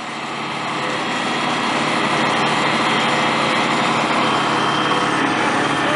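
Engine-driven water pumps running steadily, pumping water to fill the AquaDam; the noise grows louder over the first couple of seconds, then holds steady.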